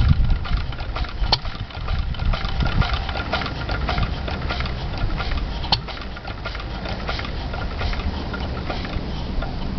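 Lister D single-cylinder stationary engine with its cut-out switch held, turning on the inertia of its heavy flywheel. The rhythmic thumping is strongest for the first two seconds or so, then goes on lighter, with a couple of sharp clicks.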